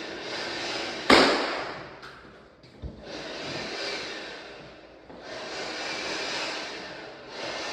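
A single sharp, loud knock about a second in and a lighter knock near three seconds, over a steady hiss of noise that fades away twice.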